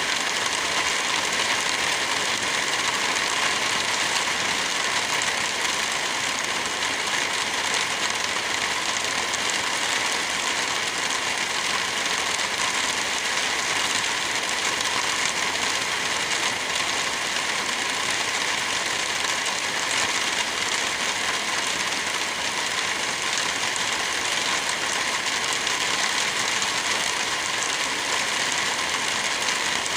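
Steady rain, an even hiss that holds without breaks.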